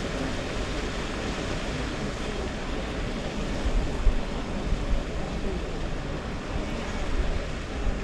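Wind buffeting the microphone: a steady rushing hiss with irregular low rumbling gusts.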